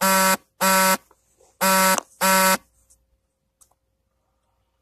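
Electronic beeper sounding four loud, steady-pitched beeps in two quick pairs, the second pair about a second after the first.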